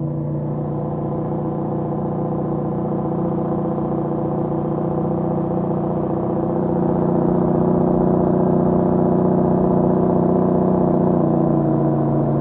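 Tractor-trailer's diesel engine brake working on a steep downhill, a loud, steady drone at an even pitch that grows somewhat louder about halfway through.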